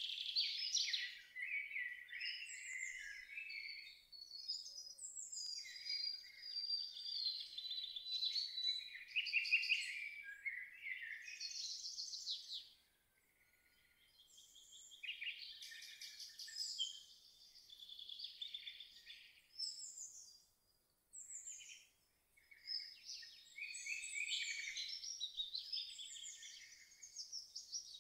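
Songbirds singing, a near-continuous run of quick, varied chirping and warbling phrases, with short lulls about 13 seconds in and again around 21 seconds in.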